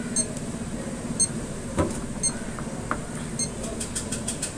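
Digital price-computing scale beeping, short high beeps about once a second with a quick run of beeps near the end. A heavy test weight thumps onto the platter a little under two seconds in.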